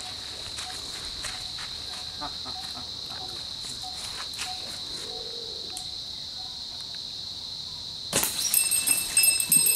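A steady, high-pitched insect drone, with a few faint clicks. About eight seconds in, a sudden clatter sets off the louder ringing of a small bell tied to a monkey's body, jingling as the animal moves.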